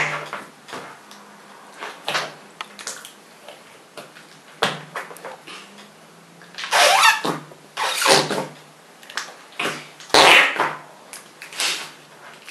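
Noise Putty squished by fingers in its plastic pot, giving a string of short fart-like squelches with the air forced out. The loudest come about seven, eight and ten seconds in.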